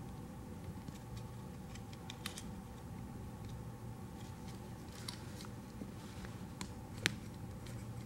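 Faint, scattered small clicks and ticks of a terminal release tool and a plastic harness connector worked by hand to free a wire's pin, the sharpest about seven seconds in, over a steady low hum.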